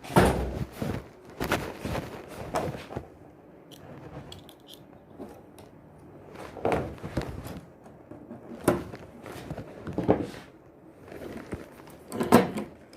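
Irregular knocks and clatters of hand work, about seven in all, with quieter scraping and handling noise between.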